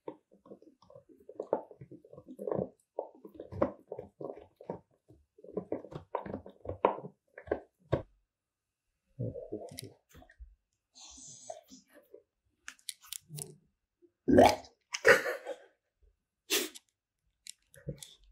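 Boxer dog gnawing on a deer antler: a dense run of teeth scraping and crunching on hard antler through the first half, then scattered bites. Two loud short noises come about three-quarters of the way through.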